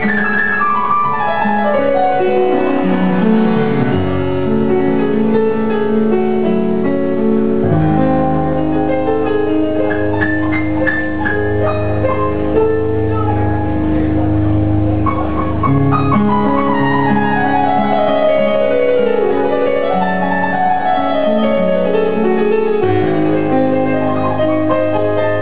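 Keyboard solo with a piano sound: fast runs sweep down and up the keys, and deep sustained bass notes are held through the middle.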